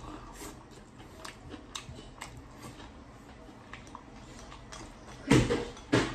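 A run of light taps, roughly two a second, then two loud knocks near the end, less than a second apart.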